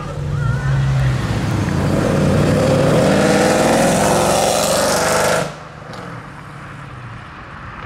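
Mercedes C63 AMG Black Series's 6.2-litre V8 with a catless iPE exhaust accelerating hard, its note climbing through the revs. About five and a half seconds in it drops off abruptly to a much quieter engine sound.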